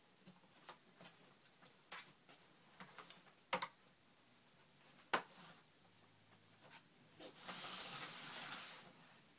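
Sharp clicks and snaps from a MacBook Pro's case being pried open with a tool, the two loudest about three and a half and five seconds in, then a scraping rub lasting about a second near the end.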